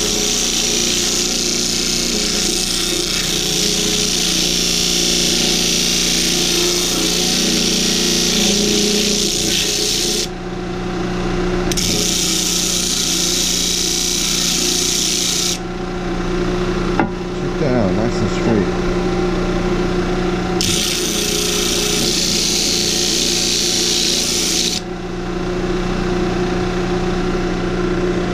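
Harbor Freight 12-inch disc sander running with a steady motor hum while a block of wood is pressed against the spinning sanding disc. There are three spells of gritty sanding hiss, the first about ten seconds long and the others about four seconds each, with short gaps where only the motor hum is heard.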